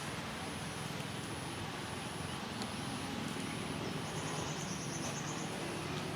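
Outdoor ambience with a steady low hum, and an insect giving a fast pulsed trill for about a second and a half midway.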